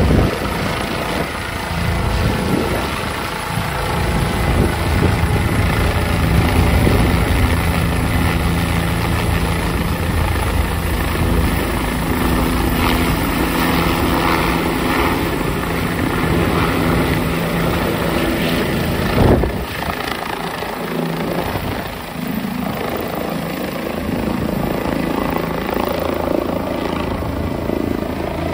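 An air ambulance helicopter flying low overhead: its rotor beats steadily over a steady high turbine whine. A brief sharp thump comes about two-thirds of the way through.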